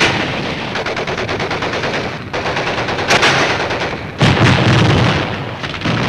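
Battle gunfire: rapid machine-gun fire for the first two seconds, then louder, deeper blasts about three and four seconds in, with another near the end.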